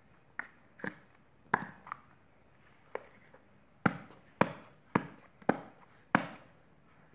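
About ten sharp, irregular knocks and taps of hard plastic slime containers being handled and set down on a hard surface, the loudest in the second half.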